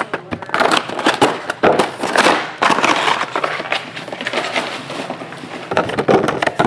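Clear plastic shrink wrap crackling and crinkling as it is handled and pulled from sealed trading-card hobby boxes, mixed with the scrape and knock of cardboard boxes being moved on the table.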